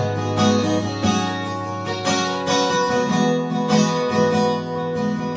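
Acoustic guitar strumming chords in a steady rhythm, an instrumental passage with no singing.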